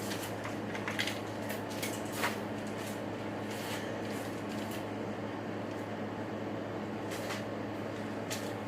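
Faint rustles and light clicks of a folded paper airplane being handled, a few separate touches, over a steady low electrical hum.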